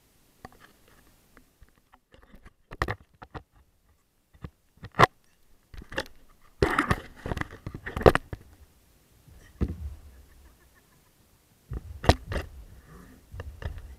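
Close handling noise of a camera being fixed onto an inflatable paddleboard's deck: scattered knocks, taps and rubbing, with a busy cluster about seven to eight seconds in and a sharp pair of knocks near twelve seconds.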